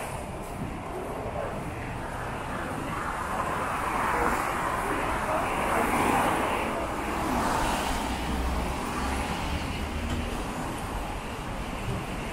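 City road traffic: cars driving past on a wet road, a steady rush of engines and tyre noise that swells and eases as vehicles go by, with a heavier low rumble past the middle.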